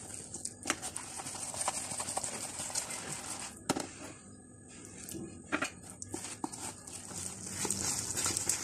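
Wire whisk beating a thick besan and mashed red lentil batter in a plastic tub: irregular clicks and taps of the wires against the tub's sides over a wet scraping, with a short pause a little past the middle.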